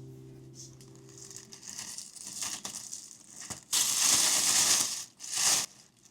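Crinkling and rustling of packaging being handled, with a loud stretch about four seconds in and a shorter one near the end, as background music fades out.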